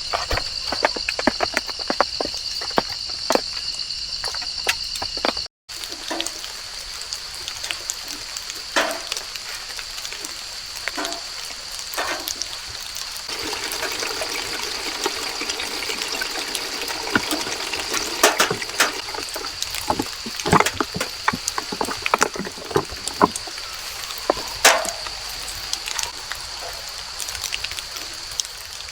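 Rain dripping and pattering onto fallen leaves: many irregular, sharp drops over a steady hiss of rain. A steady high insect drone sounds throughout.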